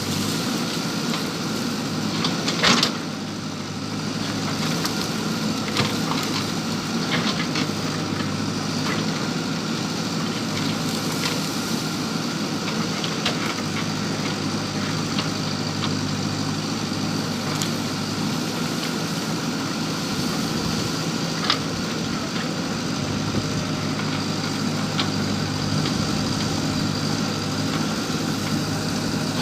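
JCB backhoe loader's diesel engine running steadily, with a few sharp knocks and clanks from the work. The loudest knock comes about three seconds in.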